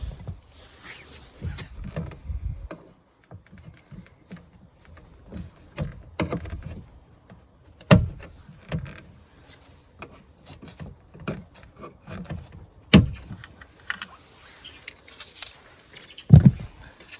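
Scattered clicks, taps and rattles of hand tools and plastic parts being worked on a car's rear door trim, with a few sharper knocks about eight, thirteen and sixteen seconds in.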